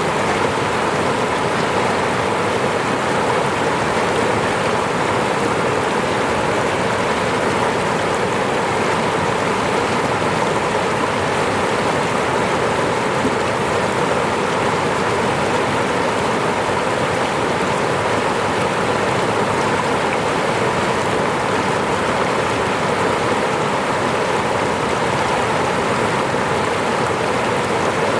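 Falling water rushing steadily, an even, unbroken splashing with no let-up.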